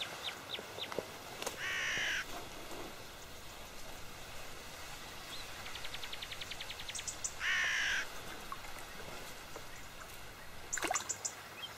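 A crow cawing twice, two harsh calls of about half a second each, some six seconds apart. Just before the second call comes a fast, faint ticking rattle.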